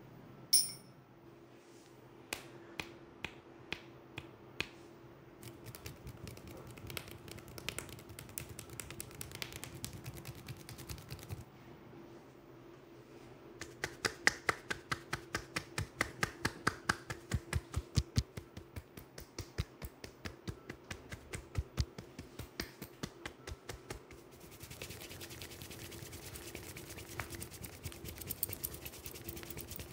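Hands giving a head and neck massage: a few sharp finger snaps in the first seconds, then a long run of quick rhythmic hand taps on the neck and shoulders, about three a second. Near the end, hands rubbing and scratching through the hair by the ear. A faint steady hum runs underneath.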